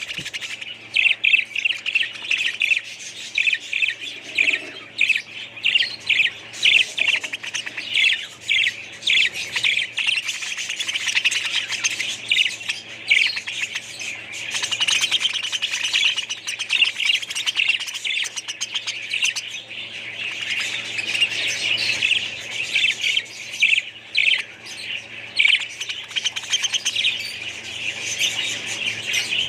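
A group of small cage birds chirping without pause: a dense chatter of many short, high calls overlapping one another, over a faint steady low hum.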